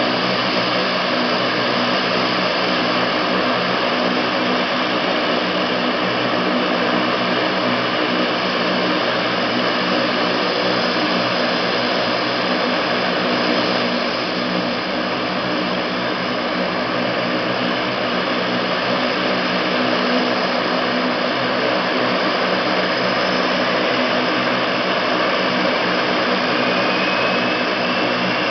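Lockheed C-130 Hercules' four turboprop engines running steadily on the ground with their propellers turning: a dense, even drone with several steady whining tones.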